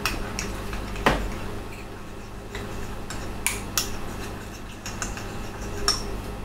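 Metal spoon clinking against a small ceramic bowl while stirring a cornstarch-and-water slurry: a handful of sharp clinks, the loudest about a second in, over a steady low hum.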